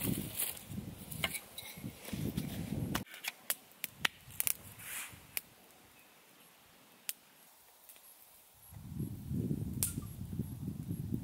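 Dry sticks being handled and laid on sand, rustling and clicking. This is followed by a small kindling fire of dry sticks crackling, with a handful of sharp pops over a quiet background. Near the end a low rustling returns.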